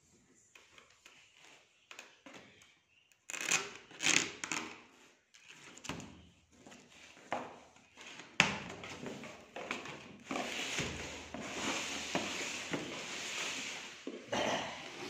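A corrugated cardboard carton being opened by hand: a box cutter slitting it, then the flaps and sides scraping and rustling as they are pulled apart, with a couple of sharp knocks. Sparse at first, it becomes louder and more continuous about halfway through.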